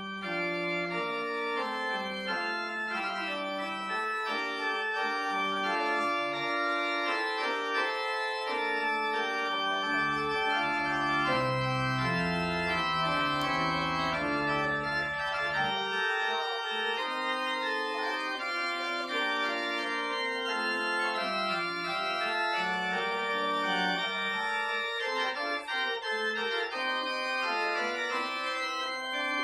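Church organ playing the postlude: sustained chords moving from one to the next, with deep pedal notes for a few seconds about a third of the way through.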